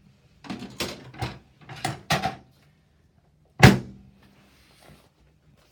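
Chiropractic drop table: a quick run of knocks and clicks, then one loud clack about three and a half seconds in as a drop section of the table falls under the adjusting thrust.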